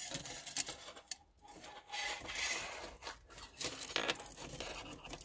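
Light metal clicks and scraping as a thin steel wire pin is pushed through the hinges of a folding metal wood stove's plates and legs, with some rubbing in the middle.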